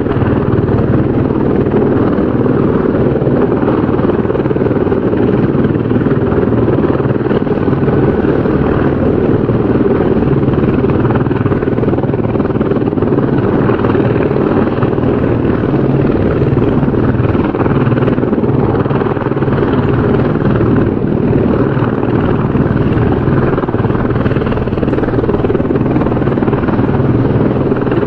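Helicopter running steadily: a continuous rotor and engine drone with steady low tones, no change in pitch or level.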